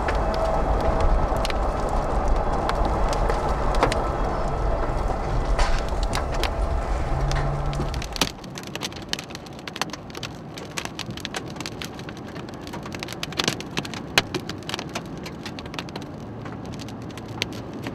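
Large hailstones striking a moving car: sharp, irregular knocks over the rumble of the drive. The rumble is louder for the first eight seconds; after that the knocks stand out more clearly and come thick and scattered.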